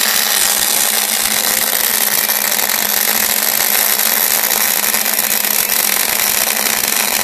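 MIG welding arc on steel, running unbroken as a steady, loud crackling hiss.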